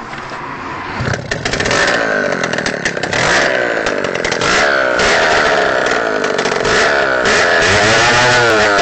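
Simson M53 single-cylinder two-stroke moped engine running on its own, out of the frame, revved up and down by hand-pulling the throttle cable at the carburettor. The revs climb over the first couple of seconds, then swing up and down, with a marked rise and fall near the end.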